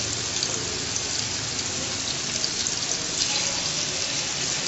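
Marinated chicken malai boti skewers sizzling steadily on an oiled grill pan over low heat while they are turned over.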